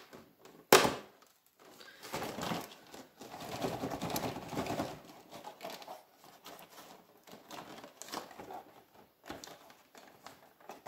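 A sharp click or knock about a second in, then rustling and crinkling as packaging is handled while a numbered Advent calendar compartment is opened.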